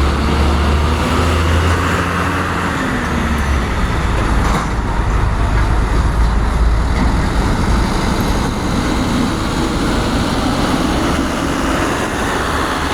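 A large engine running steadily with a loud low drone, its pitch shifting slightly about a second in, amid the general noise of heavy cargo-handling machinery.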